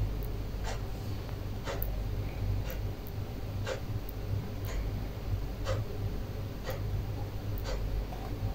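A clock ticking evenly, about once a second, over a steady low hum.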